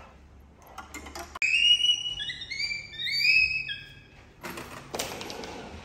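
Yamaha electronic keyboard sounding a quick run of high, overlapping notes as a baby monkey steps on its keys, followed about a second later by a short rustling thump.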